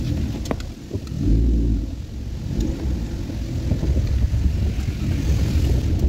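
Car driving on a road: a steady low rumble of road and engine noise, with a few faint clicks.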